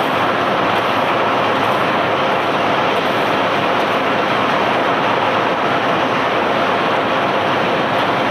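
Barge unloading machinery handling cobblestones, running with a loud, steady, unbroken noise.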